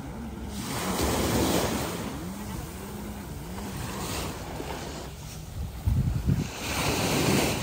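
Sea waves washing onto a beach, the surf swelling about a second in and again near the end.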